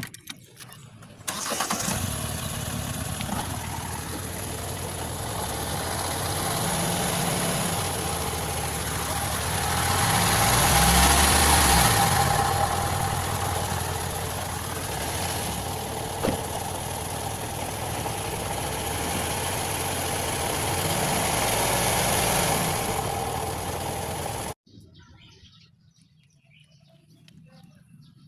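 A car on the move with a steady hum and road noise from a worn wheel bearing. The hum swells louder around the middle and eases off again, then cuts off suddenly a few seconds before the end.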